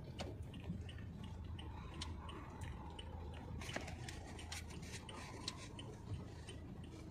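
Car cabin noise while riding: a low, steady rumble of the moving car, with faint irregular ticks and clicks and a sharper click near the end.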